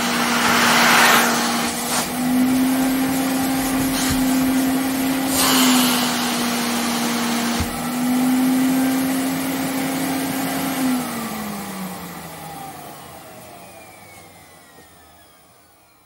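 Vacuum cleaner running, a steady motor whine under rushing air that surges louder a few times. About eleven seconds in the motor winds down, its whine falling in pitch as the sound fades away.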